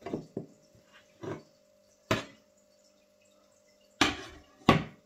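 About six sharp metal clinks and knocks at irregular intervals, the last two the loudest, as an Allen key works the screws and the sheet-metal side panel of a Longer Orange 4K resin 3D printer's base is taken off.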